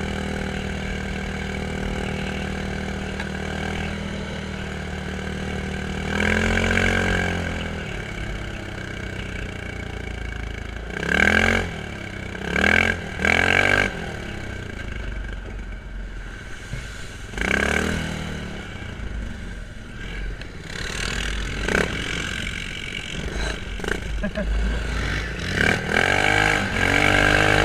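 Quad bike (ATV) engine idling with several short revs of the throttle, each rising in pitch, three of them in quick succession partway through.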